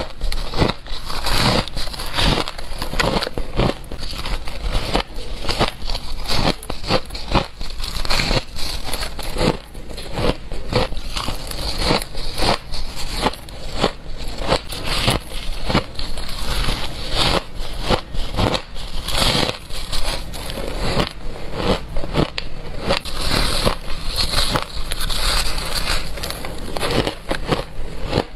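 Crushed white ice being bitten and chewed close to a clip-on microphone: dense, crisp crunching, several crunches a second.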